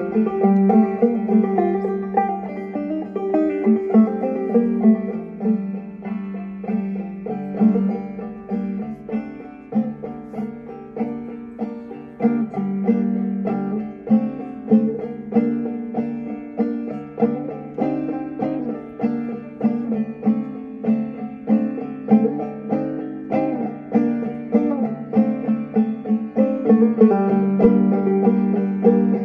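Clawhammer banjo playing a steady, rhythmic dark-folk tune: a continuous run of plucked notes over ringing lower strings.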